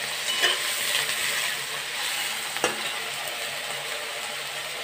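Eggplant pieces sizzling steadily as they fry in hot oil in a metal kadhai. A metal spatula stirs them, knocking and scraping against the pan twice in the first three seconds.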